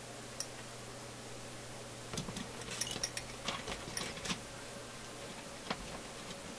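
Scattered light metallic clinks and taps as a tangled antenna wire is handled and pulled about the metal chassis of a Marconi 201A tube radio, over a faint steady low hum.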